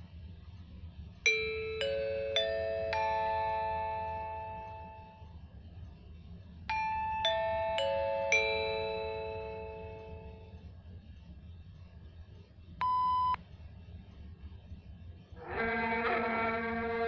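A four-note electronic chime of bell-like tones rising, each note ringing on, then the same chime falling back down, in the manner of a Japanese public-announcement chime. A short steady beep follows, then near the end a brief buzzy pitched sound.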